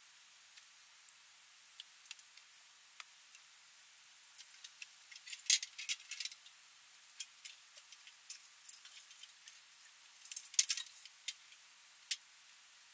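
Scattered light clicks and taps, thickest in two short flurries about halfway through and about two-thirds of the way through, over a faint steady hiss.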